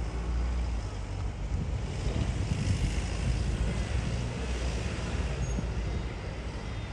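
Low, steady rumble of a Sydney Trains electric passenger train rolling slowly through the crossover points, slightly louder midway.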